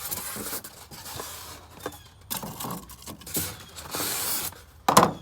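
Styrofoam packing sheets rubbing and squeaking against a cardboard box as they are pressed and settled into place, with a sharp knock near the end.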